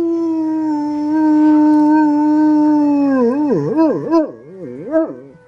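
A large mastiff-type dog howling: one long, steady note that then wavers up and down in several quick waves before breaking off near the end.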